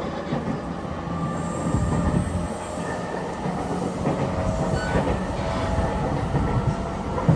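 JR East E231-series commuter train running, heard from inside the car: a steady rumble of wheels on the track with faint whining tones, growing slowly louder.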